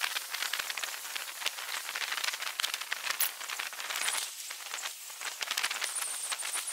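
Steady crackling, hissing wash like rain, from lake water lapping and splashing against a concrete breakwater. A faint high whistle comes in near the end.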